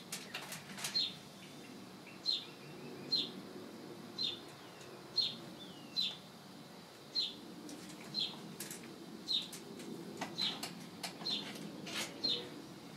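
A bird repeats a single short, slightly falling chirp about once a second. Light clicks and rattles come from a wire grill basket being handled.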